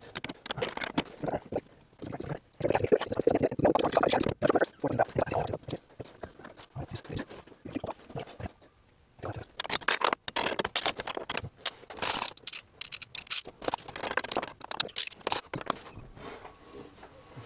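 A wrench and other metal hand tools clicking, clinking and scraping against a sailboat's rudder-post hardware as fittings are worked loose. There are two busy spells of quick clicks with a quieter pause in the middle.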